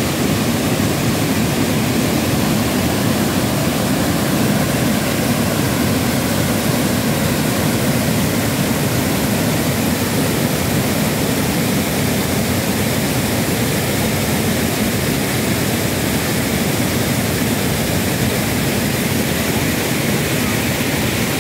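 Water pouring over a stepped stone weir and rushing through rocky rapids below: a loud, steady, unbroken rush.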